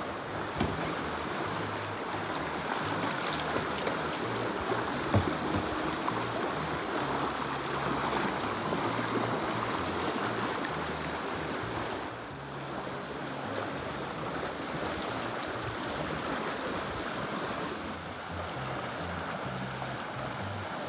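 Potomac River current rushing over rocks in a steady wash of water noise, with a couple of short, sharp knocks, the loudest about five seconds in.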